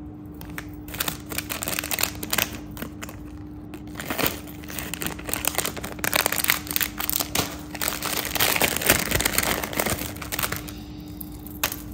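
Clear plastic jewellery pouches crinkling and rustling in a rapid, irregular run as they are handled and pulled open by hand.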